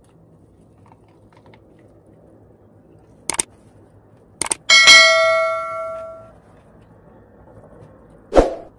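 Subscribe-button animation sound effects: mouse clicks, then a bell chime that rings out and fades over about a second and a half, and one more sharp click near the end.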